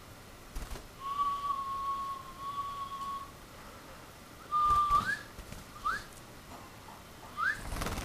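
A person whistling to a pet bird: a long, steady note starting about a second in, then short upward-sliding whistles. Brief soft flutters of the small bird's wings come between them as it flies off and back onto a hand.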